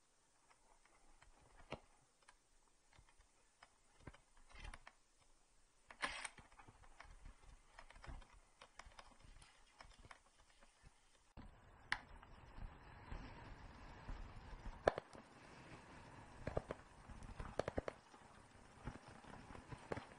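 Mountain bike (2018 Trek Remedy 9.8) rolling over a dry, rocky dirt trail: faint scattered clicks and rattles from the bike and tyres on loose gravel, turning busier and louder about eleven seconds in.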